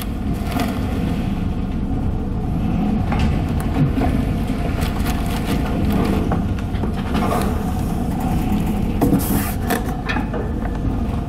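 Ship's engine droning steadily under the rush of wind and heavy sea, heard from inside behind a rain-spattered window, with a few short hisses, the loudest near the end.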